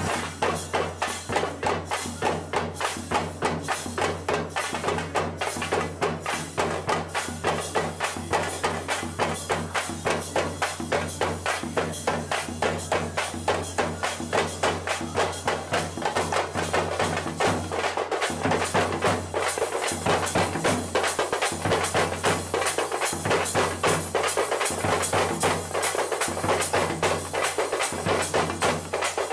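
Festival brass band drumming, its bass and snare drums beating a fast, steady rhythm of about four beats a second.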